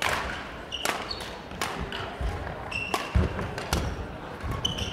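Badminton rally: rackets striking the shuttlecock in sharp pops about once a second, with short squeaks of shoes on the court floor.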